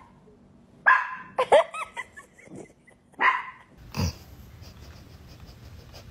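A dog barking, a few short barks in the first four seconds.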